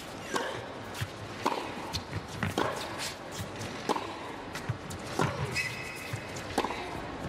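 Tennis rally on a hard court: racket strikes on the ball and ball bounces, a sharp knock about every half second to second, with a brief high squeak about five and a half seconds in.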